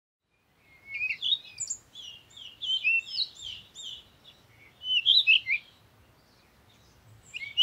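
A small songbird chirping and twittering: three runs of quick, high, sliding whistled notes separated by short pauses.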